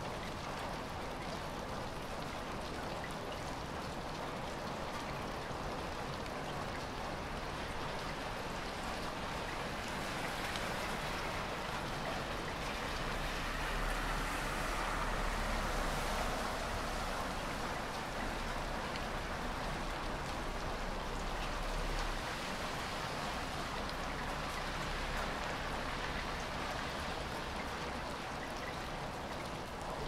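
Light rain falling in a steady pitter-patter of drops, swelling a little louder midway.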